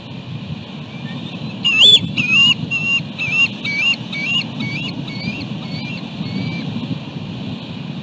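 A bald eagle calling: a series of about a dozen high, thin chittering notes, about two a second, starting about two seconds in and growing fainter until they fade out, over a steady low rumble of wind.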